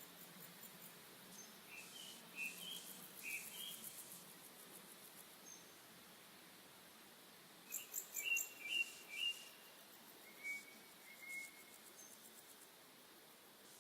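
Small birds chirping in two short runs of high calls, one about two seconds in and one around eight seconds in, with a faint rapid high ticking alongside the calls.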